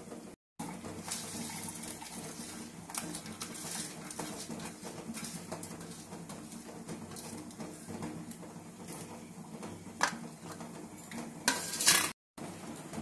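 Dry whole spices (red chillies, coriander seed, fennel, star anise, bay leaves) rattling and pattering as they are tipped from a steel plate into a steel mixer-grinder jar, with clinks of metal on metal; the loudest clatters come about ten seconds in and just before the end. A low steady hum runs underneath.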